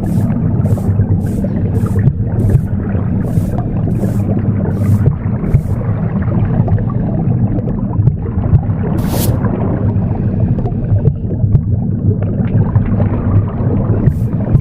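Recorded womb sound, a steady low rumbling whoosh, mixed with broom sweeps: short brushing strokes about two a second that stop about five seconds in. One stronger sweep comes near the middle, and the sweeps start again at the very end.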